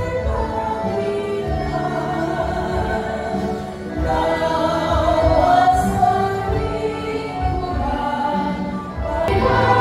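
Music with a group of voices singing held notes over a low accompaniment; it grows louder about four seconds in.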